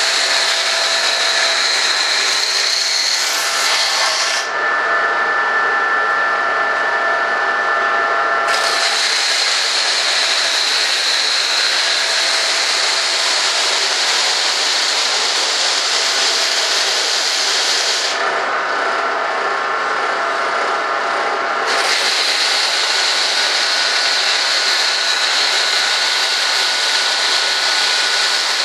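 Stationary disc sander running while the leading edge of a model jet's stabilizer is pressed against the disc: a steady, loud hiss of abrasive grinding the edge. Twice, about four seconds in and again about eighteen seconds in, the hiss drops away for a few seconds and the sander's motor whine shows through.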